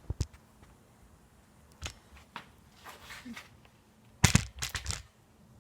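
Sharp knocks and clatter of hard objects being handled, with a loud cluster of several knocks about four seconds in.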